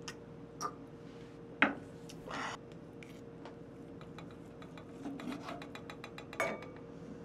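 Quiet tableware sounds: a sharp knock about a second and a half in, then a knife and fork cutting raw beef on a wooden board, with a run of small taps and clicks and a louder knock near the end.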